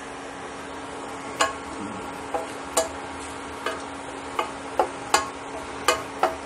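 Chopped garlic frying gently in oil in a stainless steel pan on low heat: a steady sizzle with about nine sharp, irregularly spaced pops and crackles starting about a second and a half in, over a steady low hum.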